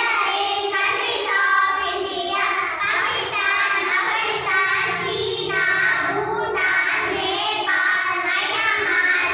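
A group of young girls singing together in unison, holding their notes.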